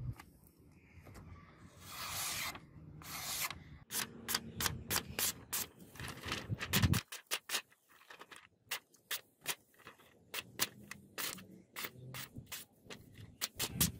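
Straight razor ground from bearing steel slicing through a sheet of paper to test its edge: two longer cuts about two and three seconds in, then a rapid run of short crisp swishes.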